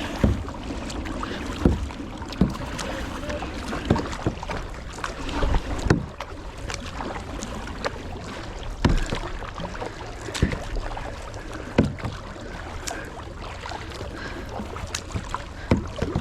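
Kayak paddling: the paddle strokes the water with a sharp splash every second or two, irregularly, over a steady hiss of wind and water.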